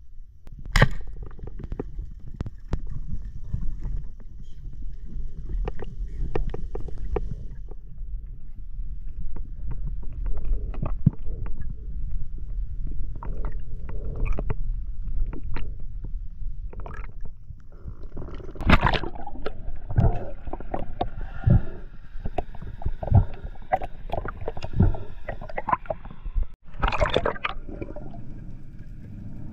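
Water sloshing and gurgling over a steady low rumble, with many scattered knocks and clicks.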